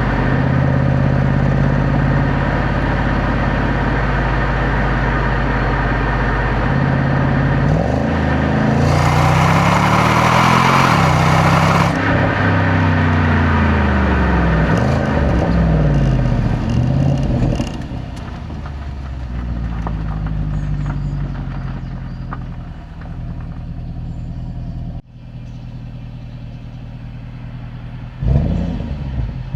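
Jaguar XFR's 5.0-litre supercharged V8 on its stock exhaust, idling steadily at first and then revved several times, the engine note rising and falling. A loud rushing noise rides over it from about nine to twelve seconds in. The engine goes quieter in the second half and rises again near the end.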